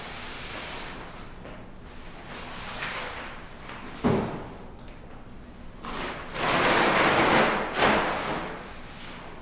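A sharp thump about four seconds in, then a few seconds of loud rustling and swishing as a large crumpled sheet of material is shaken and swung, with another knock near the end.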